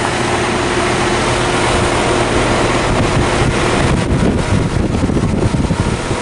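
Goodman heat pump outdoor unit's condenser fan, driven by an 815 RPM motor, running and blowing air across the microphone as a steady rushing noise. About four seconds in it turns into gusty buffeting.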